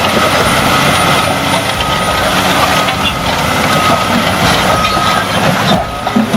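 Heavy machine running loudly, a dense, steady mechanical noise with a thin high whine that comes and goes.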